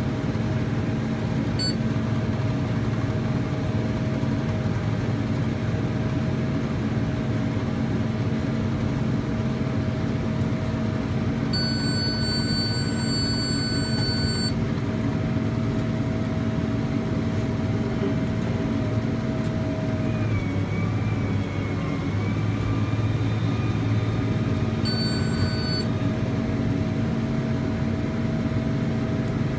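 New Holland tractor engine running steadily. A high electronic beep tone sounds for about three seconds near the middle and again briefly later.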